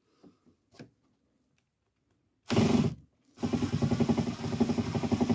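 Cordless drill drilling into a car's steel door frame: a short burst about two and a half seconds in, then a longer run with a rapid pulsing from about three and a half seconds.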